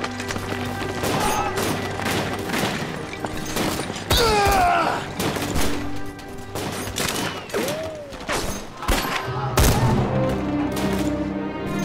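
Volleys of gunfire, many shots in quick irregular succession, over a dramatic music score with sustained tones.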